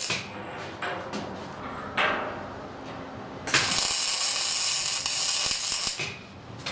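MIG welding arc crackling and hissing on steel. A brief burst comes about two seconds in, then a steady run of about two and a half seconds that cuts off shortly before the end.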